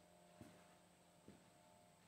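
Near silence: faint room tone with a low steady hum and two very faint ticks.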